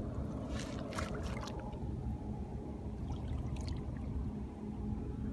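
Water splashing and sloshing in short spells, about half a second in and again around three seconds in, over a steady low outdoor rumble.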